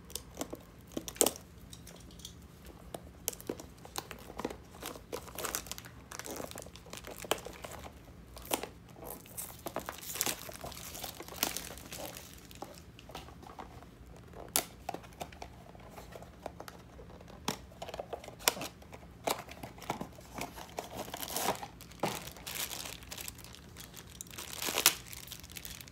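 Packaging of a Funko Mystery Mini blind box being torn open and its foil bag crinkled by hand. The crinkling is irregular, with scattered sharp snaps.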